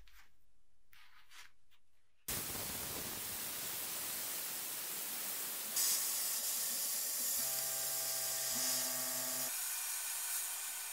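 Sandblasting rust off an old steel cleaver: a steady, even hiss of abrasive blast that starts abruptly about two seconds in and turns harsher about six seconds in.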